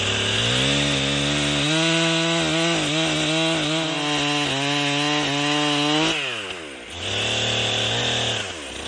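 Chainsaw running at full throttle and cutting into an oak trunk, its pitch steady with slight wavering under load. About six seconds in it falls back toward idle, then revs briefly once more before dropping off near the end.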